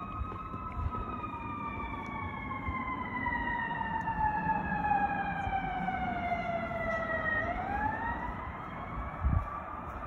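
Fire truck siren wailing: one long, slow fall in pitch that turns and starts rising again about three-quarters of the way through, over a low traffic rumble. A short low thump comes near the end.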